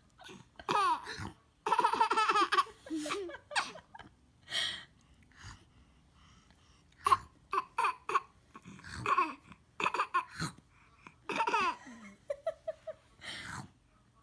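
A baby laughing in repeated bursts of giggles and belly laughs, with short pauses between them.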